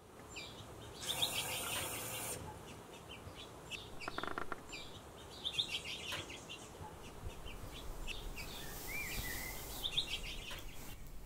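Small songbirds chirping over and over in short, high calls, with a brief hiss about a second in and a short whistle that rises and falls near the end.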